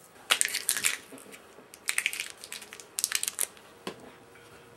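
Plastic candy wrapper of a Warheads Extreme Sour packet crinkling as it is handled, in three short bursts, followed by a single click.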